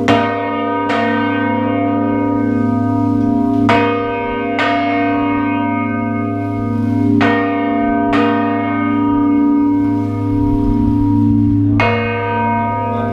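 Large cathedral bells ringing at close range in the bell chamber. The strikes come in pairs about a second apart, repeating every three to four seconds, with a single strike near the end. Each strike leaves a long ringing tone and a steady low hum.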